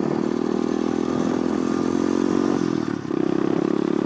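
Pit bike engine running under way in second gear, a steady drone; near the three-second mark the pitch and level drop briefly, as when the throttle is rolled off, then pick back up.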